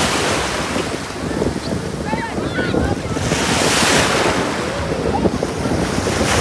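Small ocean waves washing and breaking in shallow surf, with heavy wind buffeting the microphone. One wash of surf swells up a little past halfway through.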